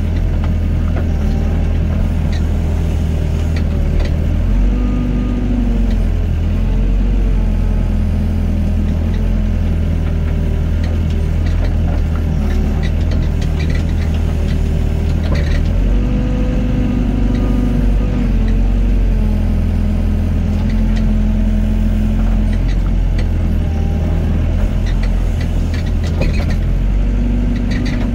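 Excavator's diesel engine running steadily under load, its pitch dipping and rising a few times as the hydraulics work while it digs and loads sand.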